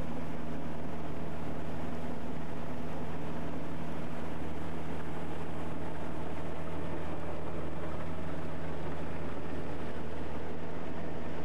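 Motorboat engine running steadily underway, a constant low hum with water and wind rush over it, heard from on board.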